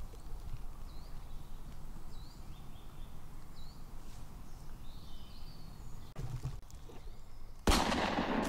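Small woodland bird repeating a short chirp about every second and a half over a steady low rumble of outdoor background noise, then a sudden loud burst of noise near the end.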